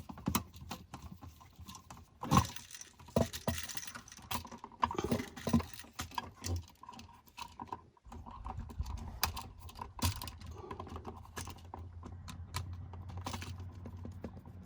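Scattered small clicks and taps of hand work on a GFCI outlet: a screwdriver on the terminal screws and wires being moved from the old receptacle to the new one. A steady low hum starts about halfway through.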